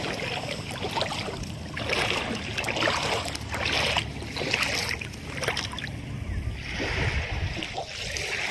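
Shallow seawater washing and sloshing in a series of surges about a second apart, over a steady low wind rumble on the microphone.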